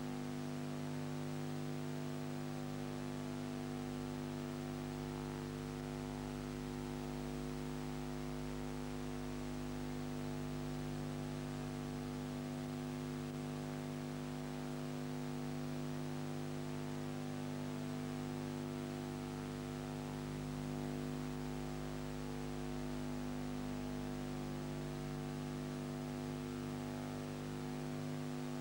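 Steady electrical hum made of several held tones over a constant hiss, with nothing else happening: the background noise of a silent ciné film transfer that has no recorded sound of its own.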